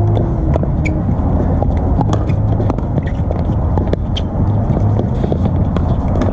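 Pickleball paddles striking the hollow plastic ball during rallies: irregular sharp pocks, a few a second, from the near court and neighbouring courts, over a steady low rumble.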